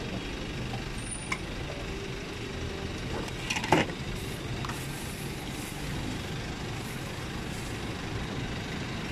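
Steady low rumble of street traffic, with a short sharp clatter a little under four seconds in.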